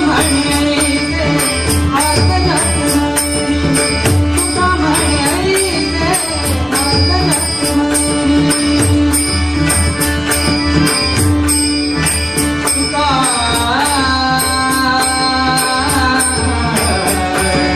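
Marathi devotional abhang: a buva's singing over a held drone and a steady drum beat, the voice rising into a wavering phrase about thirteen seconds in.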